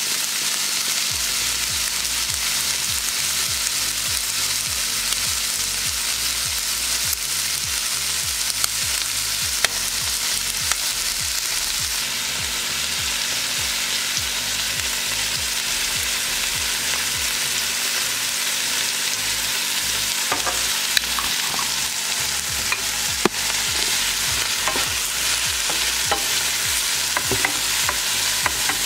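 Sliced mushrooms, diced bacon and chopped onion frying in a stainless steel pan, a steady sizzle. Scattered ticks and pops come more often in the last third, as a wooden spatula stirs the pan.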